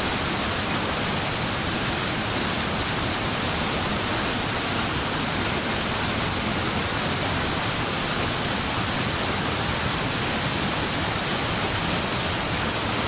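Waterfall: a steady, unbroken rush of falling water, with a bright hiss on top.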